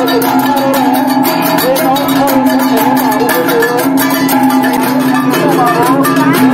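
A traditional gong ensemble: bossed brass gongs, some hung from a carrying pole and others held in the hand, struck quickly with beaters. Their steady pitches ring on under the rapid strikes, with a wavering melodic line over the top.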